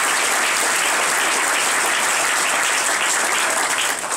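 Audience applauding steadily, thinning out right at the end.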